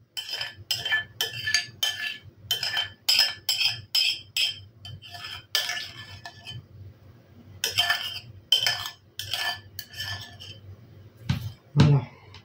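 A spoon scraping and knocking against the inside of a glazed ceramic bowl to get crème fraîche out, at roughly two or three strokes a second, each stroke making the bowl ring briefly. The strokes come in two runs with short pauses between them.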